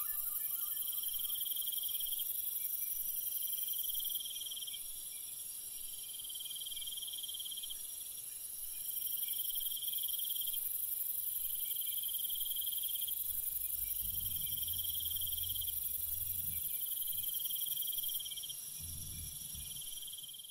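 Insects chirping: a high trill about a second long, repeating every two seconds over a steady high hiss, with a faint low rumble coming in twice near the end.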